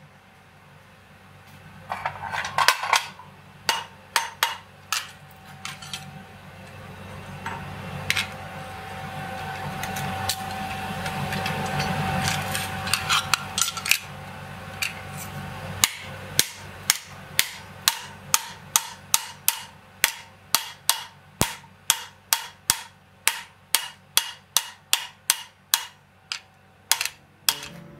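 Hand hammer striking red-hot steel on an anvil: a few scattered blows at first, then a steady run of strikes about two to three a second through the second half. A steady low hum swells and fades in the middle.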